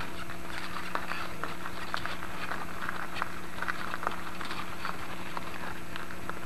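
Horse's hooves and a two-wheeled horse cart's wheels on gravel: irregular clopping and crunching clicks, over a steady low hum.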